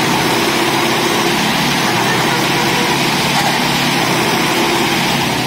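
Sonalika DI 60 tractor's diesel engine running hard and steady under load as the tractor, badly stuck in mud, tries to drive out.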